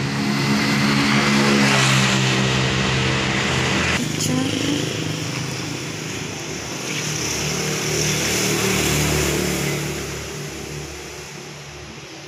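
A motor vehicle's engine running with a steady hum, which cuts off abruptly about four seconds in. After that, a duller rumble and hiss swells and fades.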